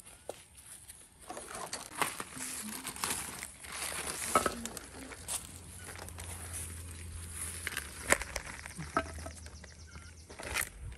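Clear plastic bags crinkling and rustling as they are handled and opened, with a few sharp clicks among the rustle.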